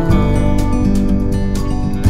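Background music: a song led by strummed acoustic guitar, with a steady beat of strums.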